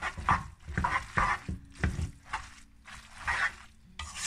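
Tongs tossing tagliolini through a creamy egg sauce in a pan: wet squelching strokes about two a second, with an occasional click of the tongs against the pan.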